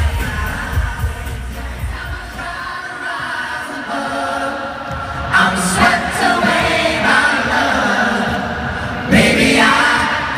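Male pop vocal group singing live in an arena, heard from the audience. At first a full band with heavy bass backs them. The bass thins out after a couple of seconds, and about five seconds in it gives way to a lighter acoustic set, with acoustic guitars under the harmonised singing.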